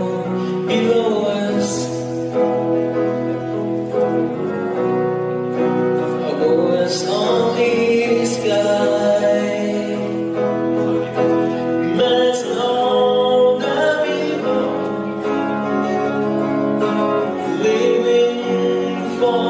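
A man singing live into a microphone while playing chords on an electric guitar.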